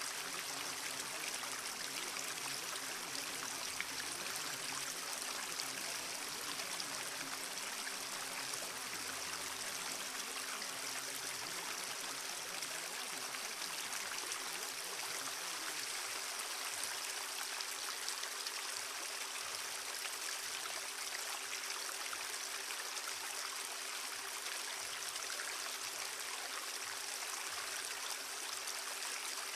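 Steady rushing noise like running water, unchanging throughout, with two faint steady low hum tones beneath it: the masking sound bed of a subliminal audio track.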